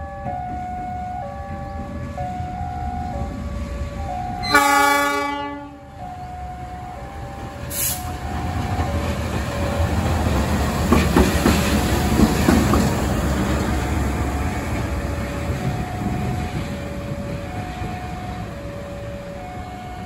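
Level-crossing warning bell ringing in a steady alternating two-tone ding-dong. About four and a half seconds in, a KAI CC 206 diesel-electric locomotive gives one loud horn blast of about a second and a half. From about eight seconds in, the locomotive runs light past close by, its engine and wheels loudest around eleven to thirteen seconds, with wheel clicks over the rails, then fading.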